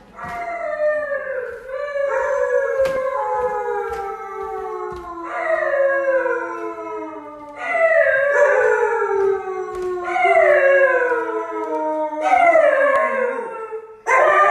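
A dog howling: about six long howls in a row, each falling in pitch.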